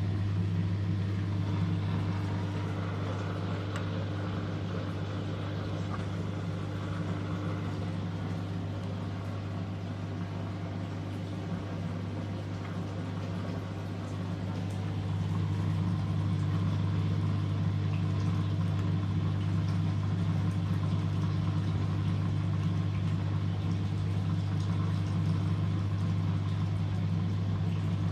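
Washing machine (a 1997 Merloni-built eurotech EW 450) running with a steady low hum. It gets slightly louder about halfway through.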